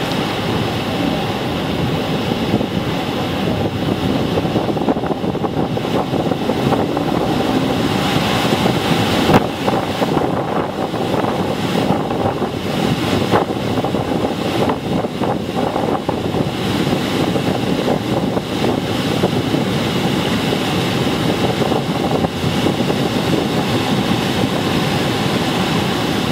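Loud, steady rush of the Moconá Falls' water pouring over the rock ledge into the river, with a boat motor running under it and wind on the microphone. A single sharp knock about nine seconds in.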